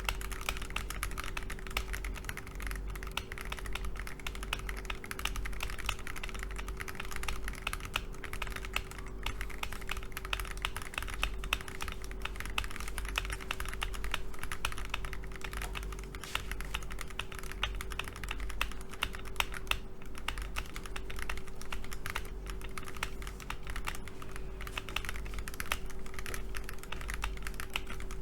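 Akko ACR68 Pro mechanical keyboard in stock form, with Akko CS Crystal switches and its long-key stabilisers, being typed on continuously in a dense, uneven patter of key clicks.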